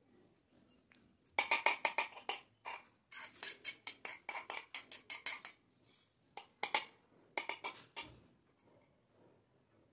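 A spoon scraping and clinking against a stainless steel bowl as food is scooped out, in several quick runs of strokes with short pauses between.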